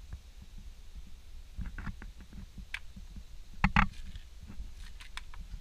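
Leather shoe stepping and scuffing on the boards of a wooden deck, with handheld-camera handling rumble. A cluster of louder knocks comes a little past the middle.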